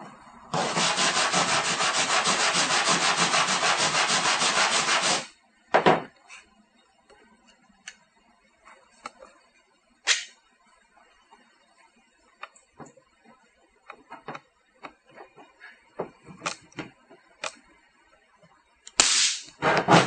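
Rapid abrasive scrubbing on a bare aluminum panel for about four and a half seconds, cleaning the metal before welding pins. It is followed by scattered light clicks and taps, and a short loud burst near the end.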